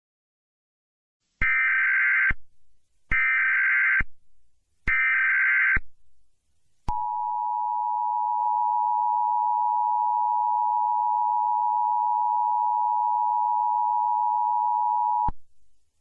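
Emergency Alert System broadcast tones: three short bursts of digital SAME header data, about a second each, then the steady two-tone attention signal held for about eight seconds and cutting off sharply. They open a Civil Danger Warning.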